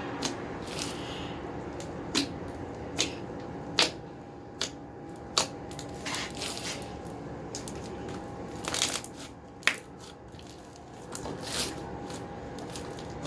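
Hands kneading and stretching a large mass of mixed slime: irregular sharp sticky pops and clicks, with softer squelching rustles in between.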